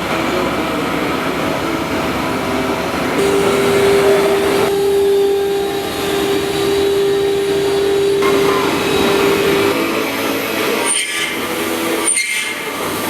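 InfoTEC 3121 PRO CNC milling centre milling: dense spindle and cutting noise, with a steady whine-like tone from about three seconds in that stops near ten seconds, and two brief breaks in the noise near the end.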